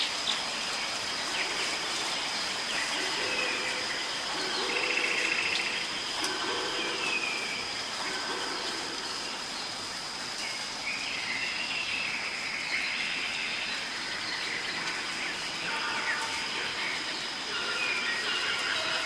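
Steady rain hiss with birds chirping over it, in short repeated calls.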